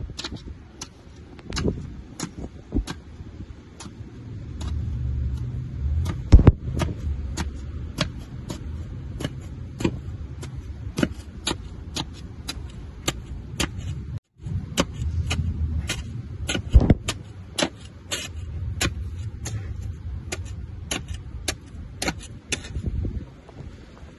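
Snow shovel working a snowy driveway: a steady run of sharp scrapes and knocks, about two a second, with two much louder knocks, about six and a half and seventeen seconds in. A low rumble comes and goes underneath.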